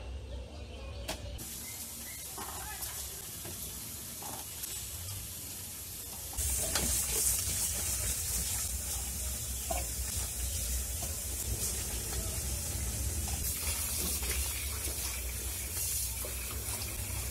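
Water streaming from a tap into a steel bowl and splashing as cut brinjal pieces and then tilapia fish are rinsed by hand. The water gets louder about six seconds in.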